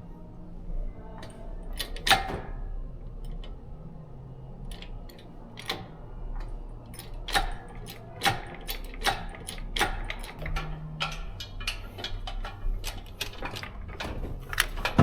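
Irregular sharp metallic clicks and clinks, several a second in places, over a faint low hum. The loudest click comes about two seconds in, and there is another near the end.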